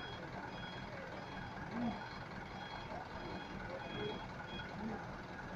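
A truck's reversing beeper: a short, high beep repeating about every two-thirds of a second, stopping near the end, over a low engine rumble.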